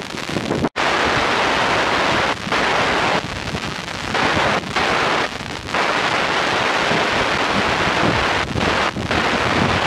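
Wind buffeting the camera microphone: a loud rushing noise that surges and dips every second or so. It drops out for an instant under a second in.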